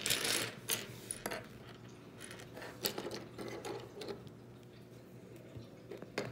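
Loose plastic Lego pieces clicking and rattling as they are pushed across a tabletop and handled, with several sharp clicks and a rustle in the first second, then scattered fainter clicks.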